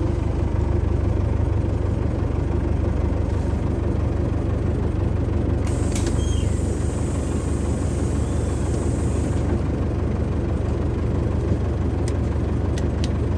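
Diesel bus engine running steadily with a deep low hum, heard inside the bus; a high hiss joins from about six to nine seconds in, and a few sharp clicks come near the end.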